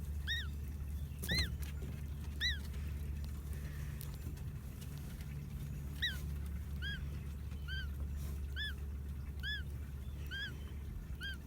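Unhatched duckling calling from inside its egg: short, high peeps that rise and fall. Three spaced peeps come in the first few seconds, then a regular run of about one a second from about halfway, the rhythm that gets it called snoring. A steady low hum lies underneath.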